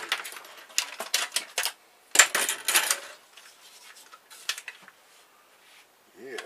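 Hard plastic printer parts clattering and knocking as they are pulled apart and handled on a wooden workbench, with a louder rattling clatter about two seconds in.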